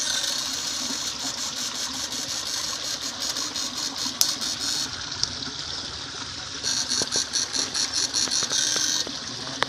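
Backpack electric-fishing shocker buzzing in rapid pulses, about six a second, as its probe is worked in the canal water; the pulsing comes in two spells, the second starting past the middle, over a steady hiss.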